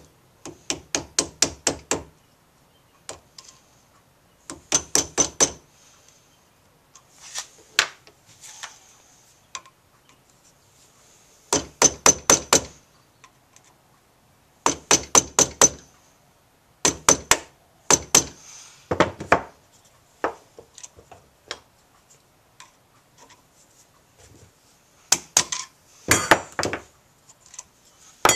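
Small hammer tapping a steel pin punch to drive a pin out of a Honda Z50A carburetor body held in a vise. Quick runs of light metallic taps, about five a second, come in a series of bursts with short pauses between.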